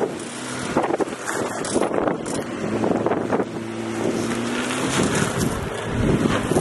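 Jeep Rubicon crawling over rocks: the engine running at low revs, its pitch rising and falling a little, with the tyres crunching over rock and wind buffeting the microphone.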